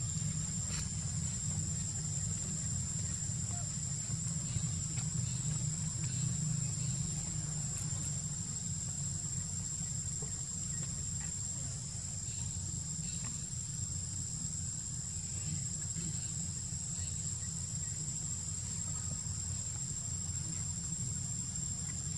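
Steady high-pitched insect chorus (crickets or cicadas) ringing on one tone, over a steady low rumble.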